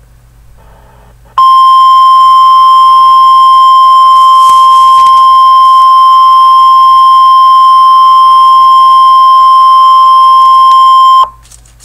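Emergency Alert System attention signal for a mock blizzard warning: the National Weather Service's single steady 1050 Hz alert tone. It sounds loud and unbroken for about ten seconds, starting about a second and a half in and cutting off suddenly near the end.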